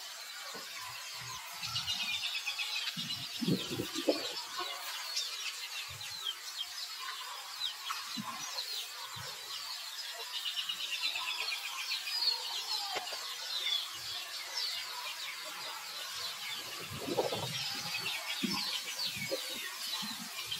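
Wild birds chirping and twittering continuously in the background, many short quick calls overlapping, with a few low rustling bumps about three seconds in and again near the end.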